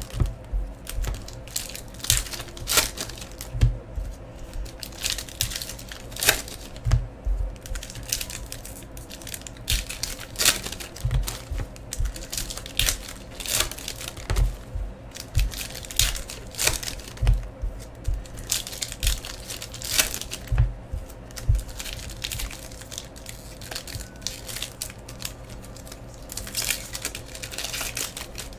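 Foil wrappers of Topps baseball-card packs crinkling and tearing as the packs are ripped open and handled, in many short, irregular crackles.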